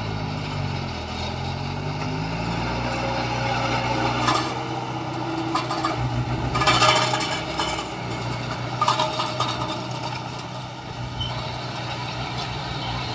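Heavy diesel machinery running at a construction site: a steady engine hum whose pitch drops over the first two seconds. A few clanking, scraping noises cut in, the loudest about seven seconds in.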